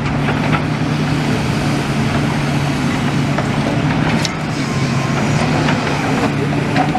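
Diesel engine of a demolition excavator running steadily, with scattered knocks and clatter of demolition rubble and a sharper crack about four seconds in.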